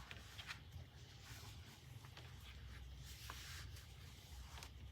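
Faint rustling and a few soft ticks of fabric being handled and folded, over a low steady room hum.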